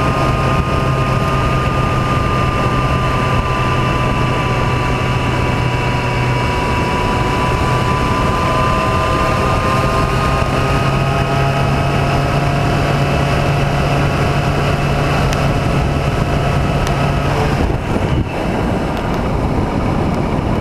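Vehicle engine running steadily at road speed under heavy wind rush on the microphone. Near the end the engine's steady hum drops away and the level dips briefly.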